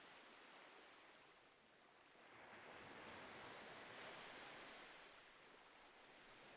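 Faint surf washing on a sandy beach. One wave swells about two seconds in and eases off near the end.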